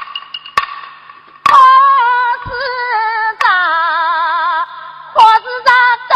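A woman singing a Huai opera aria, the line beginning '好似着', on long held notes with a wide, slow vibrato. A few sharp percussion clicks lead in during the first second and a half, before the voice enters.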